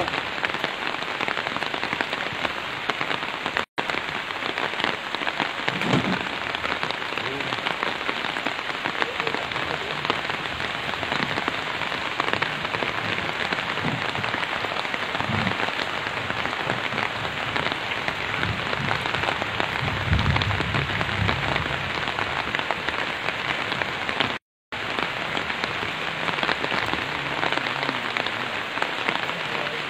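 Steady rain falling, an even hiss that holds throughout, with a few dull low thuds of firewood being dropped into a pickup bed. The sound cuts out briefly twice.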